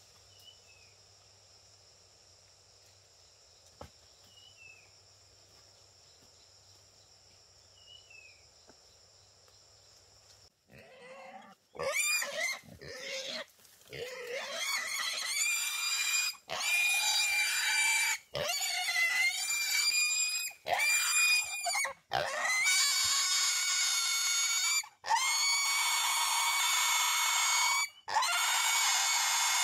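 Trapped wild boar squealing: long, shrill squeals one after another with brief breaks, starting about ten seconds in after a near-quiet stretch.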